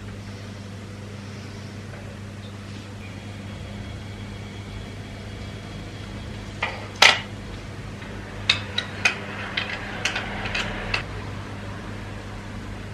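A kitchen appliance hums steadily. About seven seconds in there is one sharp clink of crockery, followed over the next four seconds by a series of lighter clinks and taps of dishes and cutlery.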